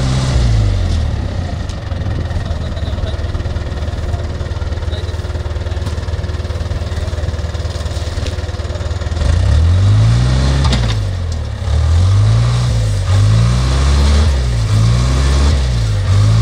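Wheel loader's diesel engine running steadily, then revving up and down repeatedly from about nine seconds in as the loader works its bucket.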